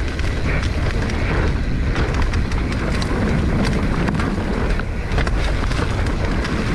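Wind buffeting the microphone over the rumble of a 2021 Giant Trance X 29 full-suspension mountain bike's tyres on a dirt trail, with many quick clicks and knocks of the bike rattling over rough ground.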